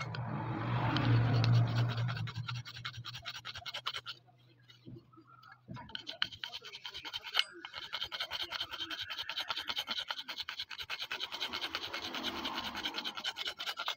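Hand file rasping on a cast aluminium dagger in fast, steady strokes, with a pause of about two seconds near the middle. A low hum sounds under the filing for the first two seconds or so.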